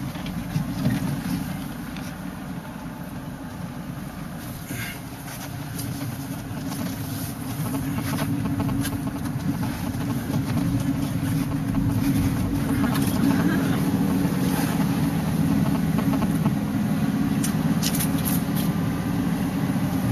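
Van engine and road noise heard from inside the cabin while driving, a steady low rumble that grows louder from about six seconds in and holds there.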